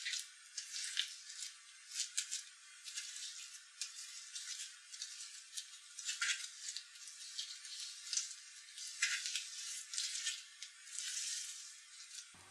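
Pink fluffy slime with foam beads being pressed and kneaded by hand on a hard surface, giving a stream of irregular wet crackles and squishes. The sound stops abruptly near the end.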